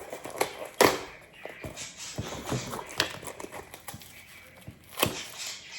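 Packaging being pried and pulled at by hand: crackling and rustling, with three sharp snaps spread through it.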